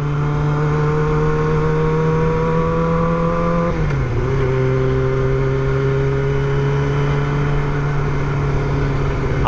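Motorcycle engine pulling under light acceleration, its pitch slowly rising, then dropping sharply about four seconds in as the rider shifts up a gear, and running on steadily in the higher gear.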